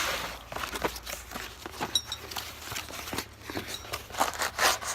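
Packaging and small parts being handled as a set of door-handle covers is unpacked: irregular rustling, clicks and light knocks, with a brief light ring about two seconds in.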